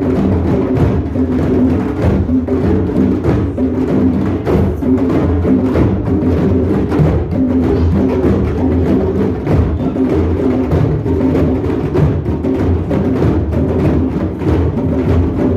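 Drum circle: many drums played together at once in a dense, steady beat with no break.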